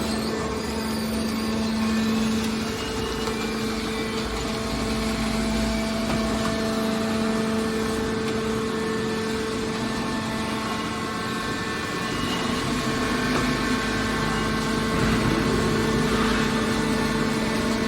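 Hydraulic scrap metal baler running, a steady machine hum with a constant drone from its hydraulic power unit. The lower part of the drone weakens from about three seconds in and comes back after about twelve seconds.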